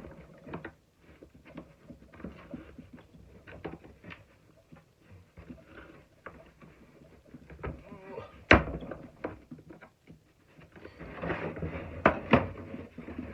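Hammer striking the plastic housing of a shop vacuum to knock it apart. Small clicks and rattles of plastic parts being handled come first, then one sharp loud blow about eight and a half seconds in and two more blows near the end.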